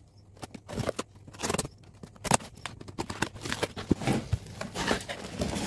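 A cardboard shipping box being opened by hand: irregular scraping, tearing and rustling of tape, cardboard flaps and packing, with sharp clicks, getting busier after the first second.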